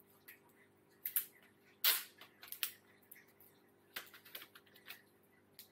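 Hands handling a new smartphone and its packaging: a scattering of small clicks and taps, the sharpest about two seconds in, over a faint steady hum.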